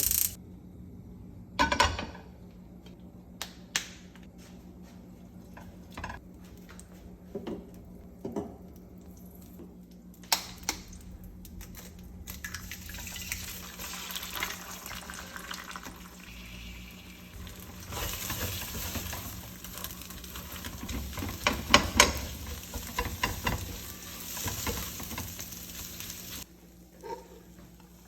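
Kitchen sounds while making coffee: scattered knocks and clinks of pots and utensils, then a long stretch of water-like hissing with a burst of clatter partway through, over a faint steady low hum.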